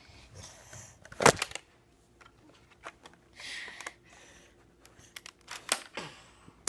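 Handling noises: a loud knock about a second in, a short rustle a few seconds in, then a quick run of small clicks near the end.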